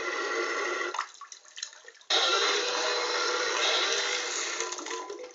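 Loud rushing hiss that breaks off about a second in and cuts back in abruptly about two seconds in.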